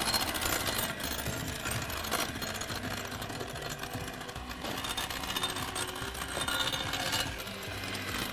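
Handheld electric mixer running steadily, its beaters whipping egg whites and sugar into meringue in a bowl. A few brief knocks sound over it.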